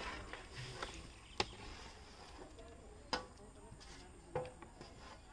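Raw mutton pieces being pushed off a steel plate and dropped into a large metal cooking pot, with three sharp knocks about a second and a half apart.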